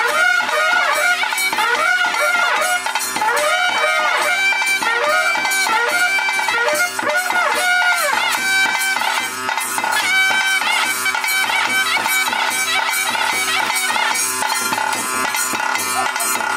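Traditional wind-instrument music: a piping melody that wavers and bends in ornamented turns over a steady drone, with drum beats throughout.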